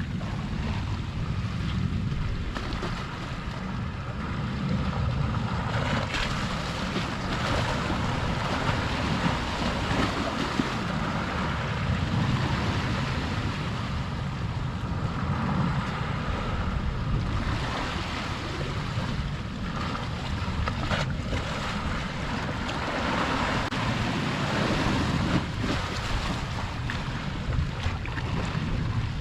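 Sea waves washing against the shore in swells that come every few seconds, over a steady low rumble of wind on the microphone.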